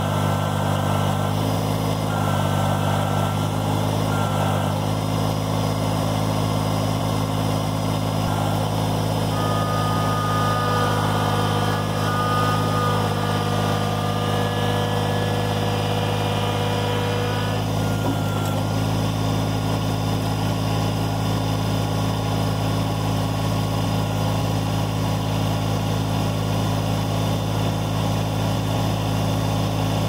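Kubota BX23S sub-compact tractor's three-cylinder diesel engine running steadily while the backhoe hydraulics work the boom and thumb. A higher whine rides over the engine for several seconds in the middle, then stops.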